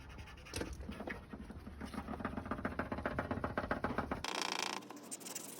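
Felt-tip marker scribbling quickly back and forth over tape on a car's bodywork, a rapid run of rubbing strokes. About four seconds in, it cuts abruptly to a short, different noise.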